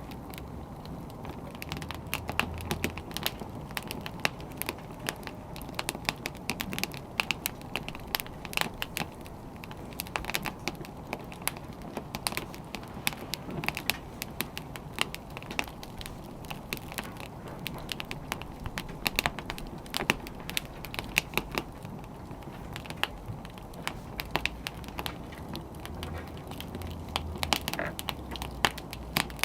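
Wood fire burning, with irregular sharp crackles and pops over a low steady rumble of the flames.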